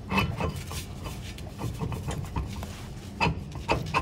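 Metal-on-metal clicking and rubbing as a disc opener's hub and blade are worked by hand onto the axle, with a few sharper knocks about three seconds in.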